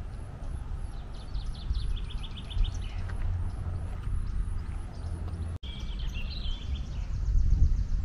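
Small songbirds singing: a quick run of high repeated notes about a second in, and another just after the middle. A steady low rumble sits underneath, and the sound cuts out for an instant partway through.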